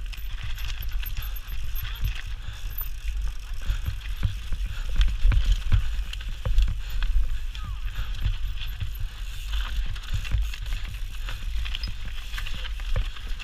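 Mountain bike descending a rocky singletrack at speed: the bike clatters and rattles over stones, with tyres crunching on gravel and dirt. A constant low rumble of wind buffets the handlebar-mounted camera's microphone.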